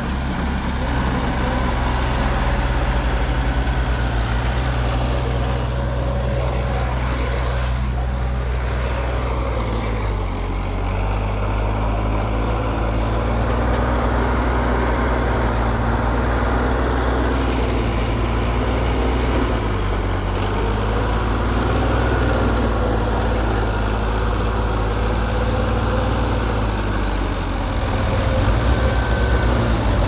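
Heavy diesel engine of an earthmoving machine running steadily under work. Its pitch shifts slightly about a third of the way in and again about two-thirds of the way in.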